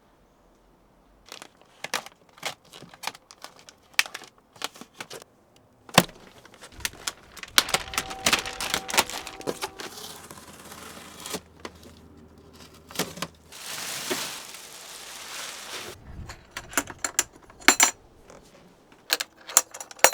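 A run of small clicks, knocks and rattles from objects being handled, with a few seconds of hiss a little past the middle.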